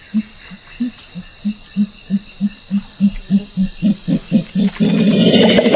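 Silverback gorilla's display: a run of low hoots that speed up, breaking into a loud burst of chest beating near the end. It is a territorial signal to neighbouring groups.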